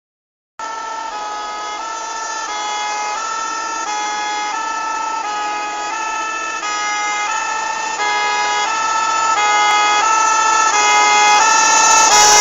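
Two-tone siren of an approaching Magirus-Deutz fire engine, alternating high–low about once a second. It grows steadily louder as the truck draws nearer.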